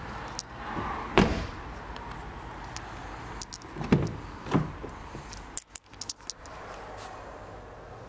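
Car doors being handled: a solid thump about a second in, two more thumps around four seconds in, then a quick run of clicks near six seconds, like latches and handles being worked.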